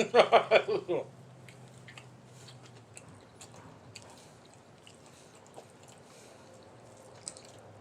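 A person chewing food, with soft wet clicks and smacks of the mouth scattered through the chewing.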